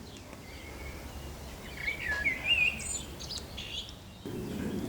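Wild birds singing, with warbling chirping phrases loudest about halfway through. A low steady rumble of background noise comes in abruptly near the end.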